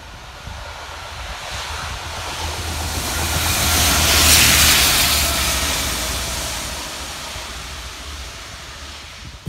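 A rail head treatment train passing close by: its diesel engine drones low under a loud hiss from the water jets spraying the rails. The sound builds to a peak about four seconds in, then fades as the train moves away.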